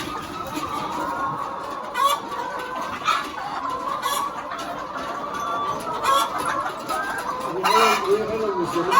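A flock of laying hens clucking continuously, with sharper squawks about once a second.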